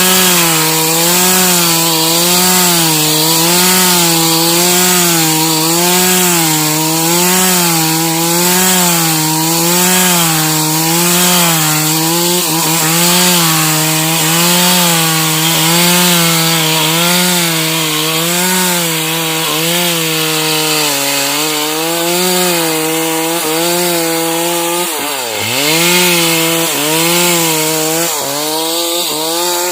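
Stihl MS 381 two-stroke chainsaw cutting sengon wood at high revs, its pitch wavering up and down about once a second as the chain loads and frees. About 25 seconds in the engine speed drops sharply and picks back up.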